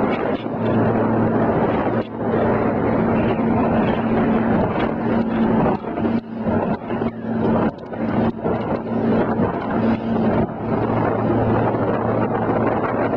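Motorboat underway at speed: a steady low engine hum under a loud rush of wind and water against the hull.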